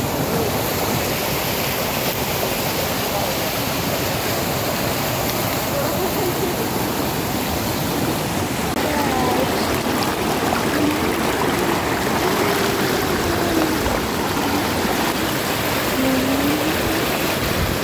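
Shallow mountain river rushing and splashing over rocks right at the microphone: a steady, loud rush of water.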